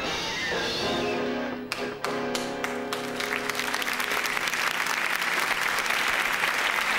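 Dramatic orchestral film score with held chords and a few sharp hits, giving way about three seconds in to studio audience applause that grows louder.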